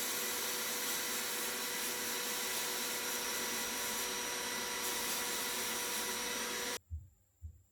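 Steady machine noise, a loud hiss with a faint hum, that cuts off suddenly near the end, followed by two dull low thumps.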